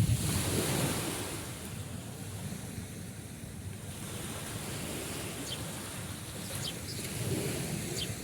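Sea waves washing ashore with wind: the wash of a wave fades over the first second, the surf runs steadily, and another swell rises about seven seconds in. A few faint short high chirps sound in the second half.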